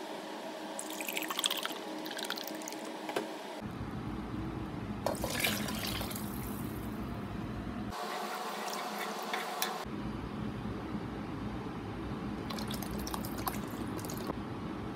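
Milk being poured into a pan of sauce, splashing and trickling in several separate pours, with abrupt cuts between clips.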